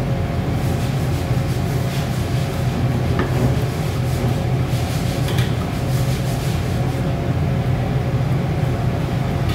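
Steady low rumble of a large gas burner running under a steel wok, with a few light scrapes of a ladle stirring the thick coconut-milk sauce.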